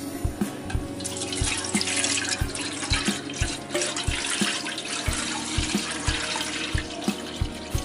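Milky liquid pouring from a plastic measuring jug into an aluminium pot, a steady splashing pour that starts about a second in and tails off near the end. A regular low beat of background music runs underneath.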